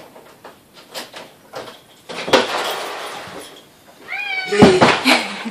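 A cat meows: one long meow that rises and falls about four seconds in. Before it come the clicks, a sharp knock and rustling of the front door being unlocked and opened, and loud knocks follow the meow.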